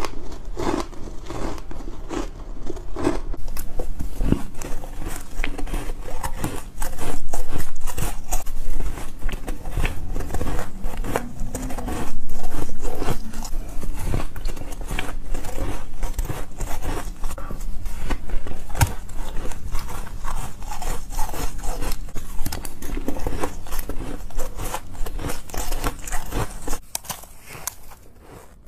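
Soft, frosty 'snowflake' ice being bitten and chewed, a dense run of crisp crunches and crackles. It gets quieter near the end.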